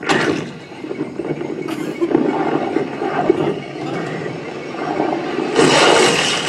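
Helicopter noise from a film soundtrack, starting with a sudden loud burst and growing louder near the end.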